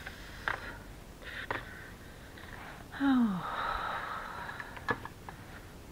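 A person's short sigh falling in pitch about three seconds in, trailing into a breathy rustle. A few light taps and rustles come from a paper-bag journal being handled.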